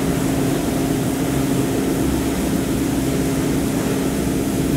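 Steady mechanical drone of coffee-roastery machinery running, a constant hum with one held mid-low tone over a low rumble.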